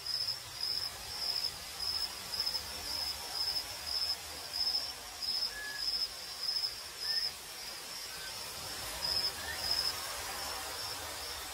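Cricket chirping in a steady rhythm, about two chirps a second, which stops about seven and a half seconds in and gives two more chirps near the end.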